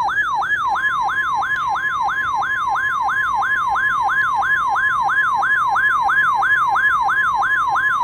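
Electronic emergency alert attention tones: a siren-like warble sweeping up and down about three and a half times a second, with a steady high tone joining it about a second in.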